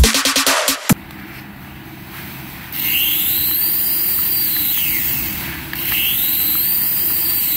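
Background music cuts off in the first second. Then the small electric rotor motors of a toy RC helicopter whine as the rotors spin up, the pitch rising and then falling, twice: first about three seconds in, then again just before six seconds.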